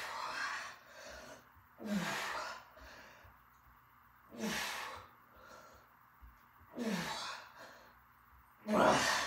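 A man's forceful exhales, each a hissing breath with a short grunt at its start, about every two and a half seconds, one per rep of heavy single-arm dumbbell rows. Five in all; the last, near the end, is the loudest.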